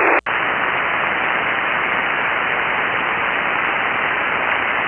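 Steady hiss of band noise from a shortwave receiver tuned to single-sideband on 7.188 MHz, with no station coming through: the other operator's reply is not being received. The hiss cuts out for a split second just after the start, then comes back slightly quieter and a little wider.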